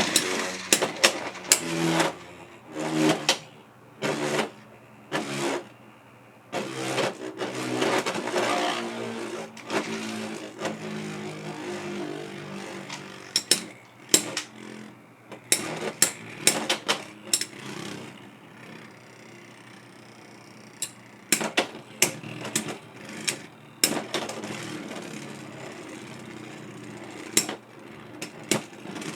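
Two Beyblade X spinning tops, Silver Wolf 3-80 Free Ball and Phoenix Rudder 9-70 Glide, battling in a stadium. They clash with many sharp clicks and knocks, with a steady whirring spin that slowly dies down as the tops lose speed.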